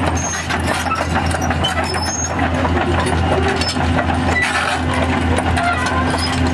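Caterpillar 320C hydraulic excavator's diesel engine running steadily, a constant low drone with a faint hum above it and scattered faint short squeaks.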